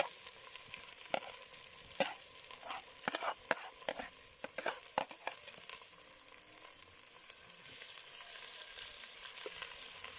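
Onion, garlic and black pepper sizzling in hot cooking oil in a sufuria, a metal cooking pot. For the first few seconds a stirring utensil knocks and clinks against the pot. The sizzle grows louder near the end.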